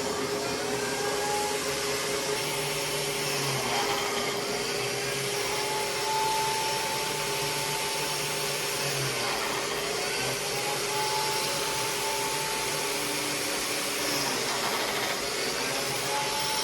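Steady whir of a power tool motor, a biscuit joiner, with a vacuum-like rush of air. A constant hum runs underneath, and higher whining tones fade in and out every few seconds.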